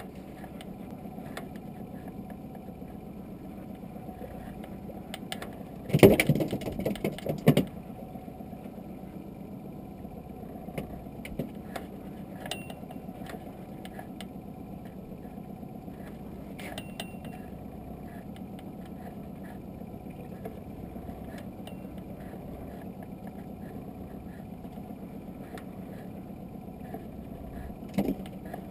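Small boat's outboard motor idling steadily, with a short burst of loud knocks and rattles about six seconds in and a few light clicks.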